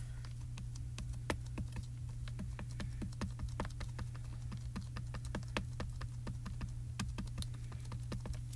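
A small dye ink cube tapped rapidly against a photopolymer stamp to ink it: light clicking taps, about five or six a second, over a low steady hum.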